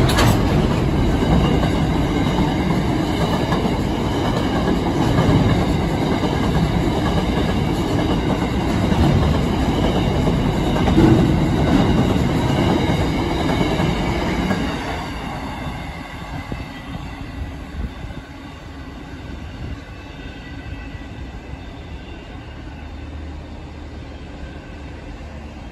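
Container wagons of a freight train rolling past close by, with a steady high wheel squeal above the rumble. About 15 seconds in the last wagon goes by and the sound drops to a quieter, fading rumble as the train moves away.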